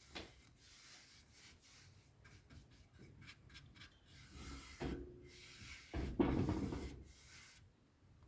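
Faint scratchy rubbing on wood: a run of short strokes, likely against the chair's wooden slats. There are two louder bumps or knocks, about five and six seconds in.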